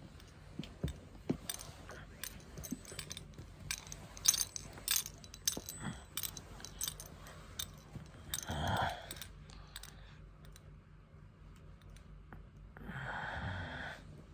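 Handling noise as a person lies down holding a phone: scattered light clicks, jingles and rustles, with a short low vocal sound about eight and a half seconds in and a breathy sigh near the end.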